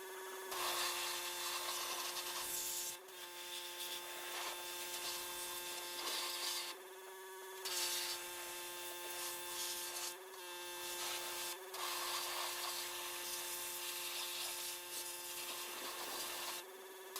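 Milwaukee Packout cordless shop vac running with a steady whine and a rushing hiss as its nozzle rubs and scrapes over the tire machine, sucking up debris. The sound is broken by several brief dropouts.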